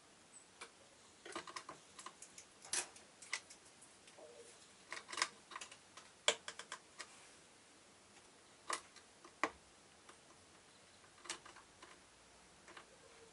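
Irregular light clicks and taps, some in quick little runs, as a Japanese tit hops and pecks on a plastic feeder and its response keys.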